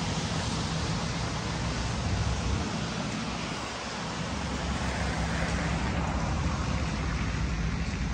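Steady outdoor street ambience at night: a constant even hiss with a low steady hum beneath it, like distant traffic and machinery.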